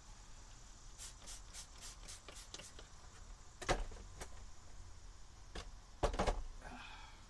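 Handling of a paper shop towel and a plastic spray bottle: a quick run of short crisp rustles or clicks, about four a second, then a dull knock and, a couple of seconds later, a pair of close knocks.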